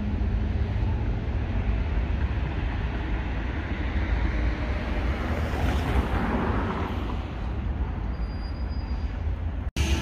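Outdoor street ambience: a steady low rumble, with a vehicle passing that swells to a peak about six seconds in and fades away.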